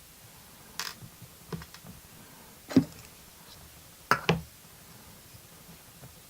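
A few sharp small clicks and taps from the parts of an old pin-tumbler lock cylinder being handled while it is taken apart. The loudest comes near the middle, and a quick pair follows about a second later.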